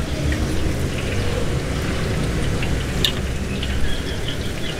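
Light crackling of oil frying in a deep fryer, with scattered small ticks, over a steady low rumble.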